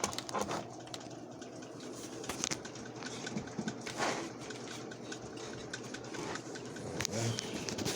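Handling noise: a speaker cable being worked and plugged into the back of a small studio monitor, with a few scattered clicks and knocks.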